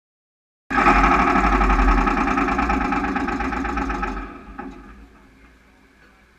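Hopto H1900 hydraulic excavator's diesel engine running loud with a fast, even firing beat. It cuts in suddenly about a second in and dies away about four seconds in.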